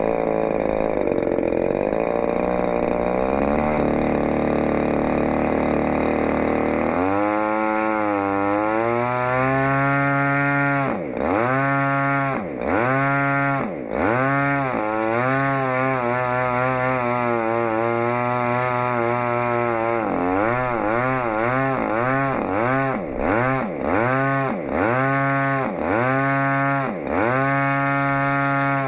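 DLE-35RA 35 cc single-cylinder two-stroke gasoline model-aircraft engine running on a test stand and turning its propeller during break-in. Its note changes about seven seconds in, then holds steady with a repeating wavering.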